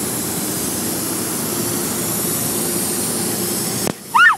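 Gas station air pump hose blowing a steady hiss of air into a condom, with a faint hum underneath. The air cuts off suddenly near the end, and a person gives a short high-pitched cry right after.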